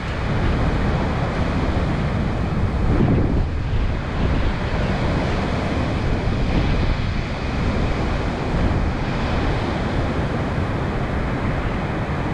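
Strong wind buffeting the microphone, over a steady wash of sea surf.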